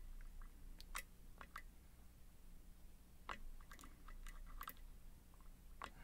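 A handful of faint, scattered light clicks from a steel hook pick working the pins inside a Scorpion CX-5 cylinder lock while the tension wrench is eased off to let an overset pin drop.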